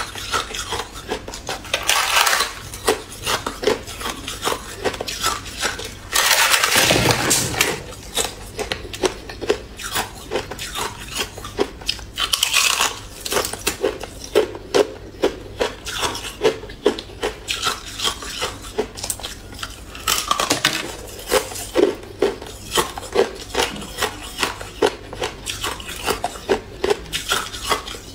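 Thin sheets of clear ice cracking and being crunched between the teeth: a rapid run of sharp, crisp snaps and crackles. Louder stretches of dense crackling come a few times.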